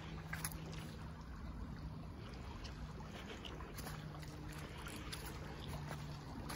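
Shallow creek softly trickling over stones, with a faint low steady hum underneath and a few light clicks.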